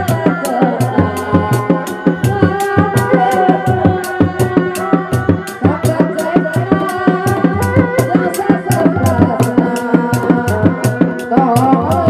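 Sundanese reak ensemble music: dogdog drums beat a fast, steady rhythm of about four strokes a second under a wavering, held melody.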